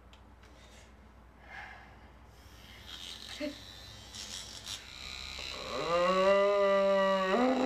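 Battery-powered vibrator switched on, its motor buzzing loudly at a steady pitch that rises as it spins up and then steps higher near the end. Faint rustling comes before it.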